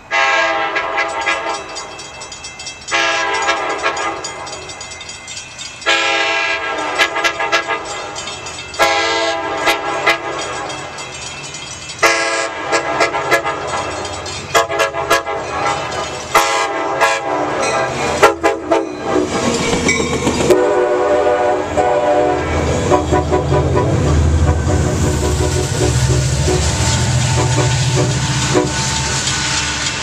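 Amtrak California passenger train's multi-chime horn sounding four long blasts about three seconds apart, then a quick run of short toots. The train then rolls past with wheel clatter and a low rumble.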